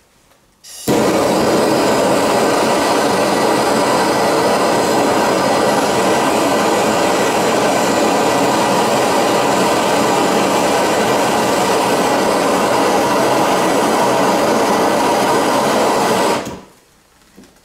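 Handheld gas torch burning with a steady loud hiss while heating a copper pipe joint on a hot-water baseboard heater for soldering. It lights about a second in and is shut off near the end.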